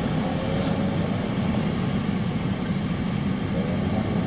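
Small speedboat's engine running at speed as the boat planes past, a steady low drone.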